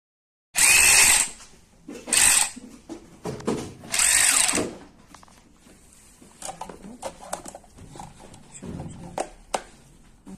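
DeWALT DCF512D1 cordless brushless ratchet running in three short bursts of about half a second each, starting suddenly about half a second in. Lighter clicks and knocks follow.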